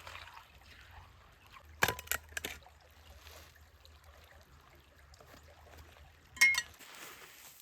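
Faint trickling water, with sharp metallic clinks: a cluster about two seconds in and a louder one near the end.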